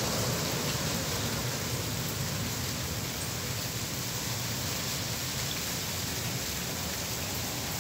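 Steady rain falling on a wet street and trees: an even hiss with no single sounds standing out.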